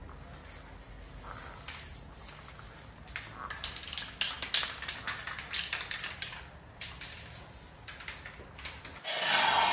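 Scattered light clicks and rubbing from work on a car's underbody, then about nine seconds in a loud, steady hiss of an anti-rust coating being sprayed on.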